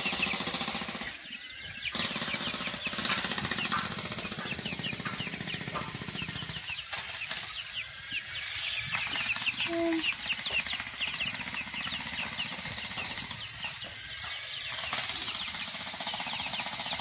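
A brood of young chicks peeping: many short, high cheeps in a dense chorus over a steady rapid buzzing, with one short lower call about halfway through.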